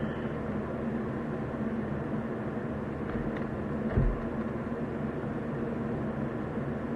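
Steady background hiss with a low hum, and one low thump about four seconds in.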